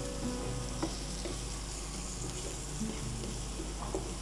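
Garlic and green chillies frying in oil in a nonstick pan, a gentle, steady sizzle.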